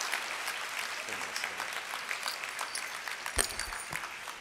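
A large audience applauding, the clapping slowly dying down, with a few low thumps near the end.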